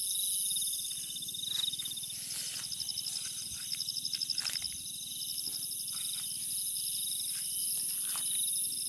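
Night chorus of crickets trilling steadily in fast high pulses, with scattered short rustles and crunches, like steps through dry grass.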